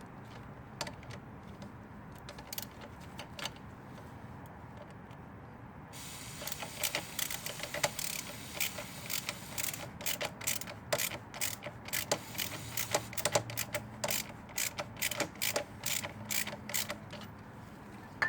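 Ratchet clicking in quick runs as a socket turns a bolt through a motorcycle brake rotor's floating bobbin, freeing the seized bobbin. From about six seconds in, an aerosol can of carb cleaner hisses steadily as it is sprayed into the bobbin, until shortly before the end.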